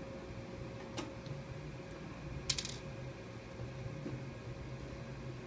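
Screws being undone with a screwdriver from the steel lid of a rack-mount transmitter case. There is a single click about a second in and a quick run of small metallic clinks about two and a half seconds in, over a faint steady hum.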